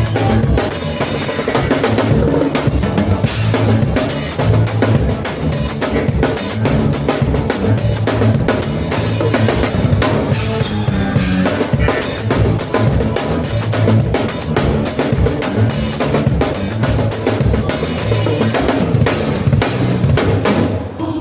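Live band playing gaúcho fandango music: a drum kit keeps a steady beat with bass drum and snare, under an accordion.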